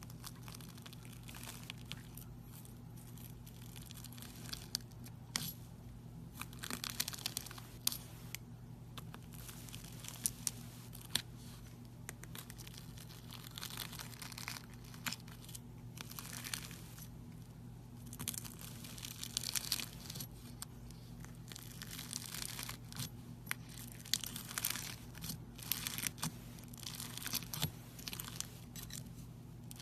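Slime being worked by hand, giving irregular sticky crackles and small pops that come thicker after the first few seconds, over a steady low electrical hum.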